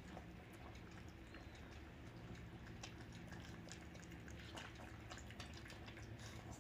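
Small dog eating wet rice porridge from a plastic bowl: faint, irregular wet lapping and clicking sounds.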